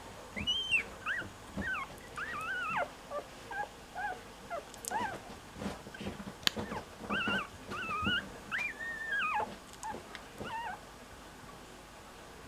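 Very young cocker spaniel puppy whimpering and squeaking in a run of high, wavering cries that slide up and down in pitch, stopping about a second and a half before the end. A few sharp taps sound among the cries, the loudest about six and a half seconds in.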